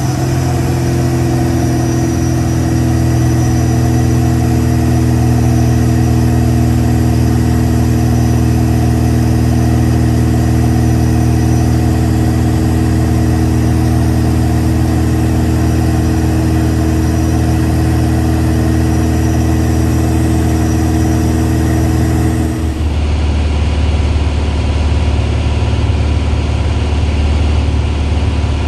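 Vans RV light aircraft's piston engine and propeller running steadily in cruise. About 23 seconds in, the sound cuts to a lower, duller engine note inside the cockpit as the aircraft comes in to land.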